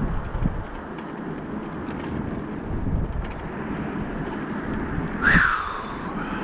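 Mobility scooter rolling along an asphalt road: a steady rumble of its drive and tyres, with wind on the microphone. About five seconds in, a single short high squeak that falls in pitch stands out above it.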